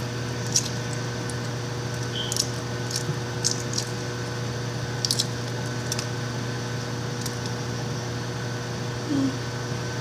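Microwave oven running with a steady hum while cooking eggs, with scattered small crackles and ticks.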